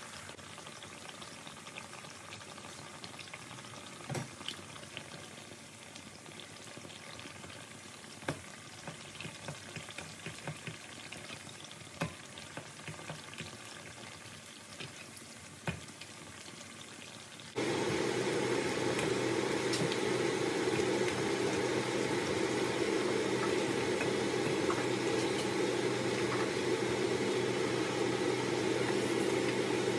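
Chapli kebab patties shallow-frying in hot oil in a wok: a steady sizzle with occasional sharp clicks. About two-thirds through, the sizzle jumps suddenly louder and fuller and stays there.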